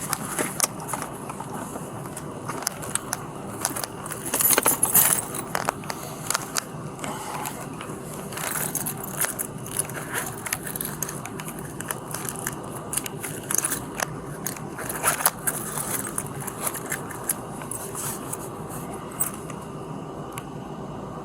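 Scraping, crackling and clicking handling noise close to a police body-worn camera's microphone, as clothing and gear rub and knock against it, over a steady low hum. The loudest cluster comes about four to five seconds in, with another burst around fifteen seconds.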